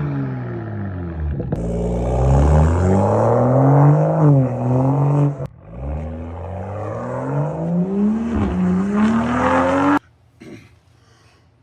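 Car engine revving hard under acceleration, its pitch climbing and dropping several times as if shifting through gears. It cuts off suddenly about ten seconds in.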